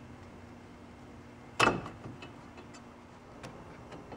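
A disc brake pad being pushed into its caliper bracket and its new hardware clips: one sharp metal click about a second and a half in, then a few light ticks.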